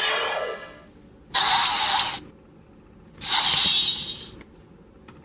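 Toy-style sound effects for a missile attack: three noisy rushing bursts of about a second each, the first already fading, the next two starting suddenly with gaps between them.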